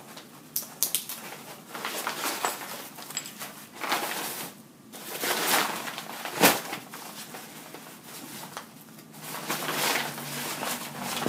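Aircraft life vest being handled and shaken out, its fabric rustling and crinkling irregularly, with one sharp knock about six and a half seconds in.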